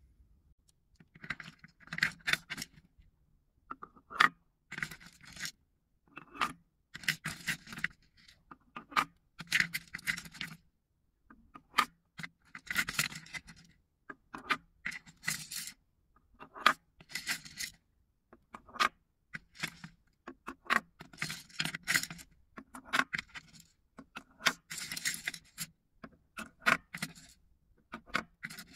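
Wooden ball scoop scraping and rattling among wooden balls and paper stars in a wooden bowl, with sharp wooden knocks as balls are set into wooden cups. It comes in short bursts every second or two.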